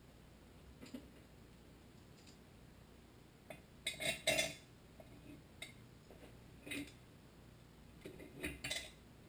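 Light metal clinks and rattles of a sheet-metal heat shield being handled and set against the cylinder head of a Tecumseh HSK70 engine, in a few short clusters, loudest about four seconds in and again near the end.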